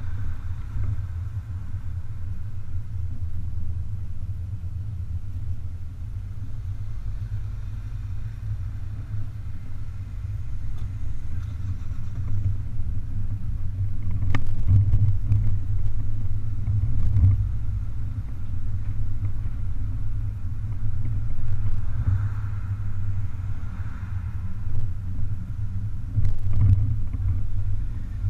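BMW 420 convertible driving with the top down: a steady low rumble of road, engine and wind noise that grows louder about halfway through, with a few faint knocks.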